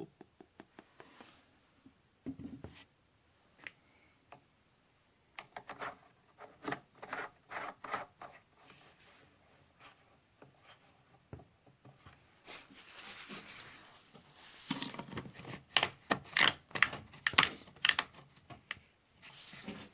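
Irregular clicks, taps and knocks of things being handled, sparse at first, with a stretch of rustling and then a denser, louder run of clicks in the last few seconds.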